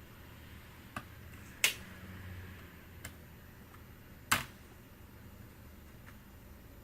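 A few sharp clicks and taps of small hard plastic and metal laptop parts being handled during disassembly, two louder ones a few seconds apart with fainter ticks between.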